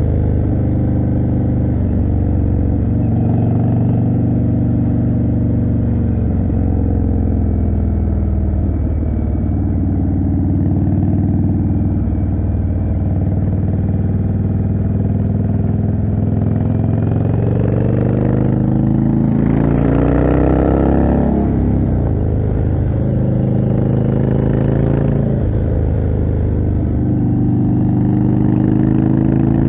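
Indian Chieftain's 1811 cc V-twin running through a Jekill & Hyde exhaust while riding, the engine note steady for most of the time. About twenty seconds in it swells and its pitch rises and falls.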